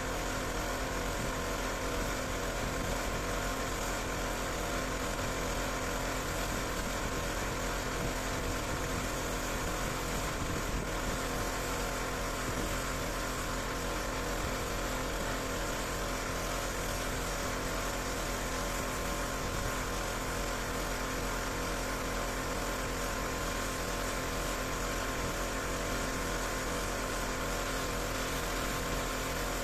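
Pressure washer running steadily: a constant engine-like drone under the hiss of the water jet, holding one level without a break.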